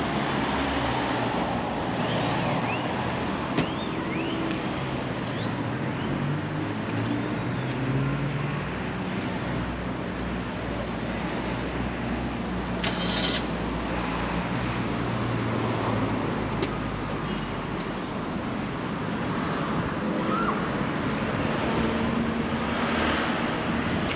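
Street traffic: cars driving along a city road, their engine hum swelling and fading as they pass. A short high-pitched sound cuts in about halfway through.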